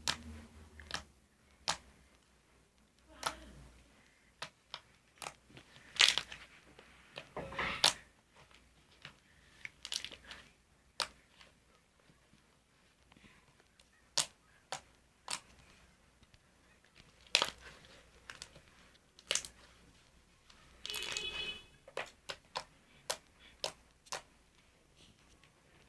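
Homemade slime being squeezed and worked by hand, giving irregular sharp pops and clicks with a few longer crackling squishes.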